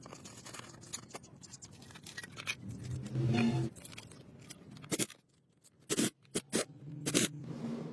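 Irregular scraping and clicking of hand work, with a few sharp knocks in the second half. A pigeon coos briefly about three seconds in.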